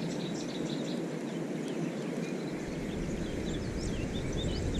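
Small birds chirping in short, repeated calls over a steady outdoor background rush.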